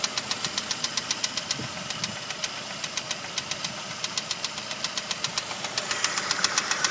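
Saab 2.0t turbocharged four-cylinder engine running with a rapid, regular knock of several ticks a second, the knocking that shows up once the engine has warmed up.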